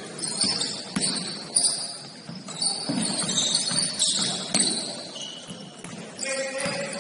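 Basketball game sounds: a ball bouncing on the court with scattered sharp knocks, short high squeaks of sneakers, and players' voices calling out indistinctly.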